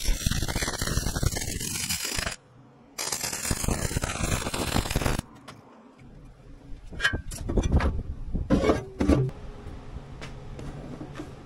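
Welding arc crackling in two runs of about two seconds each, separated by a short break, as a steel seat bracket is welded. Then a few light metal knocks and clicks.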